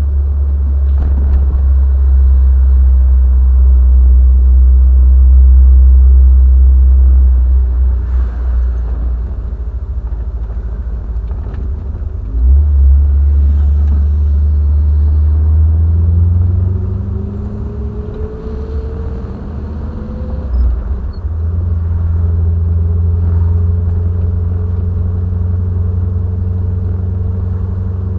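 Triumph TR7's 4.6-litre V8 driving along under a heavy low road rumble. About halfway through, the engine note climbs as the car accelerates, drops off suddenly, then settles into a steady cruise.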